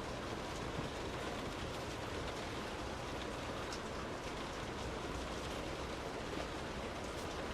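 Steady rain heard from indoors: an even hiss with scattered faint ticks of individual drops.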